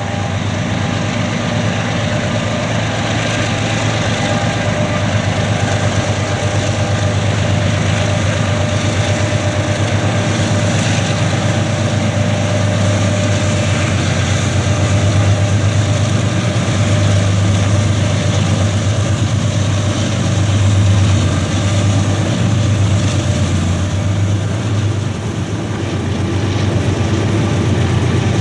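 Union Pacific freight train rolling past: covered hopper cars' wheels on the rails, with the diesel engines of a group of mid-train locomotives going by. A continuous low drone runs under the rail noise, strongest around the middle.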